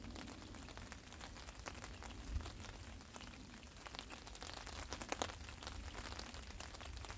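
Rain falling on a tarp overhead: a steady hiss with many irregular drop taps, a few louder ones about five seconds in.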